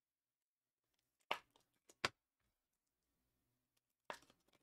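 Faint tabletop handling of trading cards: a short scrape followed by a sharp click, twice, about three seconds apart, in an otherwise near-silent room.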